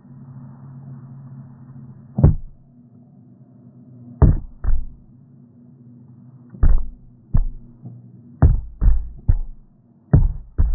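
About ten sharp knocks or thumps at irregular intervals, some close together in pairs, over a steady low hum.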